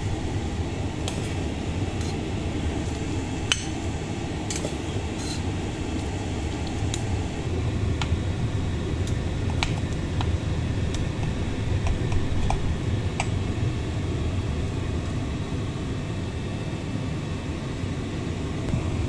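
Metal serving spoon and knife clinking and scraping against a glass casserole dish and a ceramic plate while food is dished out, over a steady fan hum. The clinks come in scattered single ticks, thinning out after the first dozen seconds.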